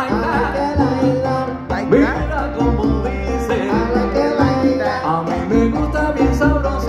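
Live Latin band playing a salsa-style number: congas, saxophones and a low bass line over the stage PA, without singing words.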